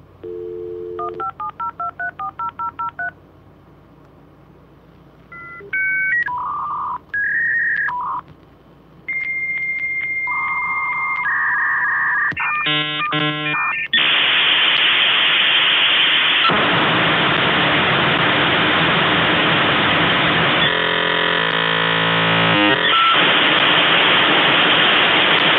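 A dial-up modem connecting: a short dial tone, a quick run of about ten touch-tone digits, then after a pause the handshake's steady tones and warbling chirps, giving way about halfway through to a long, loud hiss of noise that runs until the sound cuts off.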